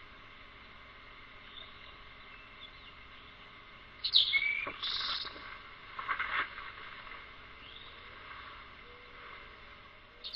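A bird calling in the yard. About four seconds in comes one loud call: a sharp falling note, then a short lower note and a harsher one. Fainter chirps follow a couple of seconds later.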